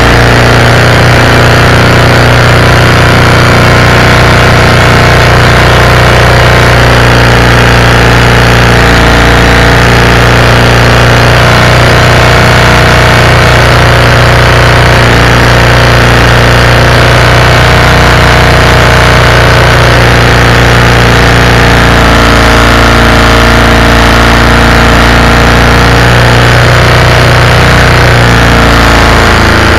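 Loud, steady running of a Predator 212cc single-cylinder four-stroke engine powering a canoe, holding one speed throughout.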